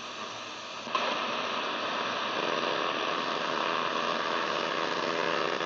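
Grundig Satellit 800 radio receiver putting out static and hiss while being tuned; about a second in it jumps louder into a rougher rushing noise with faint steady whistles.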